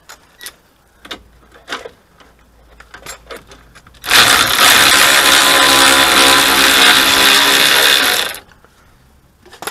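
A few light clicks and knocks, then a cordless impact wrench hammering on the front anti-roll bar drop link nut for about four seconds before it stops abruptly.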